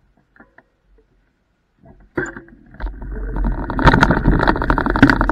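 Scooter setting off over cobblestones about two seconds in, its wheels and frame rattling in a dense run of knocks that grows louder as it picks up speed.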